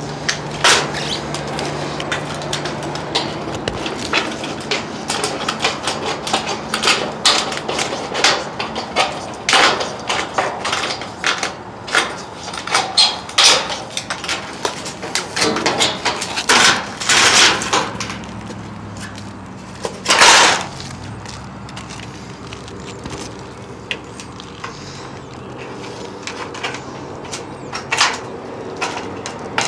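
Yellow-handled straight-cut aviation snips cutting through a corrugated steel roofing panel: a rapid run of sharp snips and crunching, rattling sheet metal, with one longer, louder rasp about twenty seconds in. A quieter stretch follows before the snipping starts again near the end.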